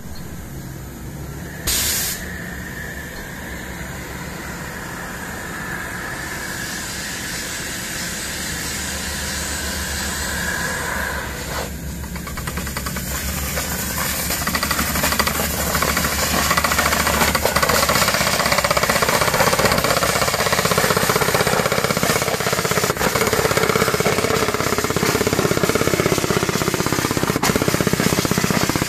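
Borehole drilling rig running, its percussive drill hammering rapidly and steadily amid a hiss of compressed air. The sound grows louder through the clip, with a brief loud burst of noise about two seconds in.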